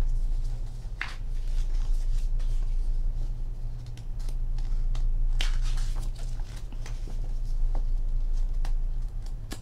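Glossy photo-book pages and a translucent tissue cover sheet being turned by hand, giving a few short paper rustles and crinkles over a steady low hum.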